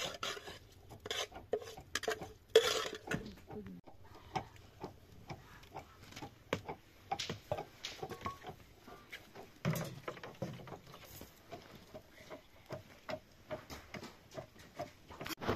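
Metal cookware clinking and knocking: a ladle tapping and scraping in a cooking pot and metal bowl, with irregular clatters of dishes being handled and one louder clatter a few seconds in.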